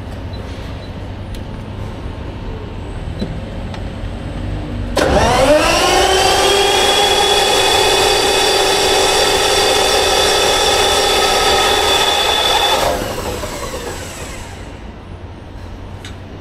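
Perkins diesel engine of a 1250 kVA generator set being started from its control panel. About five seconds in, a rising whine settles to a steady pitch, holds for about eight seconds, then dies away.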